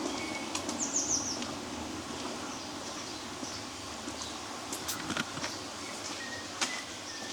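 Small songbirds chirping, with a quick run of high notes about a second in and a few thin whistles later, over a steady low background rush. A few sharp clicks sound about five seconds in and again near the end.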